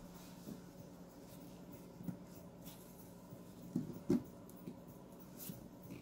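A paintbrush is picked up and handled in a stainless steel sink, making a few soft knocks and scrapes about two and four seconds in, over a faint steady hum.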